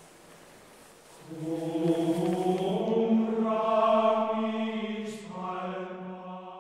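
A choir singing long held notes in harmony, coming in about a second in.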